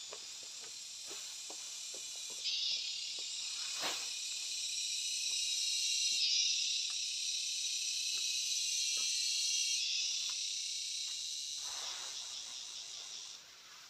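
A steady, high insect chorus buzzing, getting louder and softer in sudden steps, with scattered light taps and knocks mixed in.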